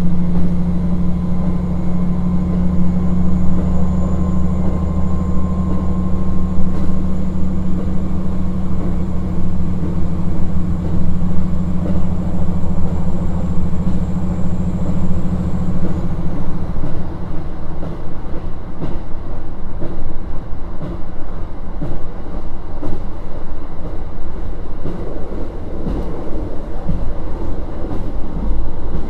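KiHa 40 1700-series diesel railcar running: the diesel engine hums steadily under power, then cuts back about 16 seconds in so that the car coasts. From then on, clicks from the rail joints come through over the rumble of the wheels.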